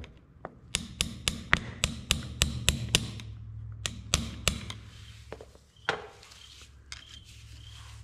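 Hammer tapping metal on metal at a tractor front-wheel hub, driving a bent cotter pin out through the spindle nut. A quick run of sharp taps, about five a second, fills the first three seconds, a few more come about four seconds in, and lighter scraping and clicks follow.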